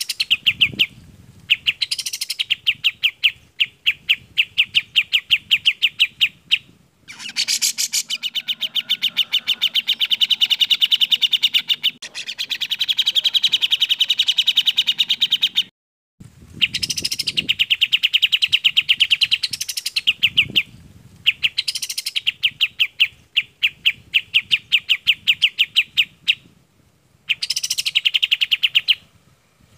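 Bird-song recording of kapas tembak and cucak jenggot (grey-cheeked bulbul) singing. The song is fast trills of rapidly repeated, clear notes, about ten a second, in bouts of a few seconds with short breaks and some higher sweeping notes between them.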